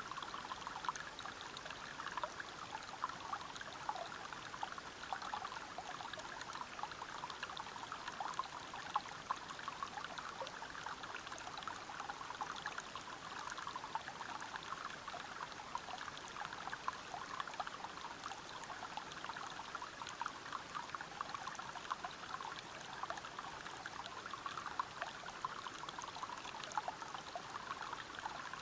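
Waterfall and river water running over rocks: a steady, even rush made of many small splashes.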